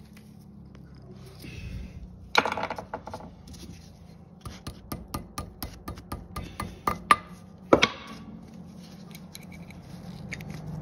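Hammer tapping a cotter pin into the castle nut on an ATV's front wheel hub. There is one sharp blow a couple of seconds in, then a run of light metallic taps, about three a second, ending in two harder blows.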